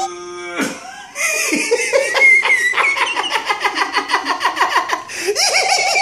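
A person laughing hard: a long, rapid run of high-pitched laughs starting about a second in.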